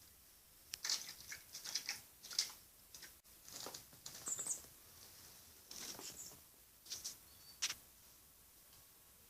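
Young hand-reared blackbird moving about: irregular light rustling, scratching and tapping in short clusters, with a brief high squeak about four seconds in.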